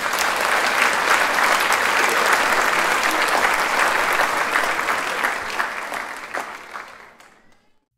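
A crowd applauding, a dense patter of many hands clapping that fades out over the last couple of seconds.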